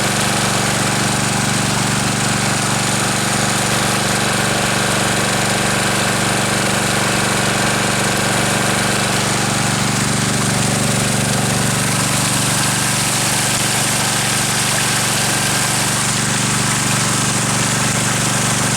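Small engine of a 2-inch highbanker dredge running steadily, driving the dredge's pump.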